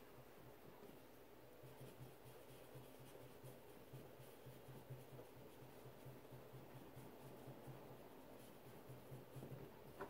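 Faint scratchy brushing and dabbing of a soft-bristled blender brush, picking up ink from an ink pad and swirling it over a plastic stencil on cardstock, pressed down fairly hard.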